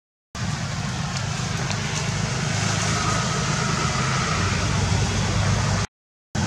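Steady low rumble of outdoor background noise, broken by two short dead silences where the recording is cut, one just after the start and one near the end.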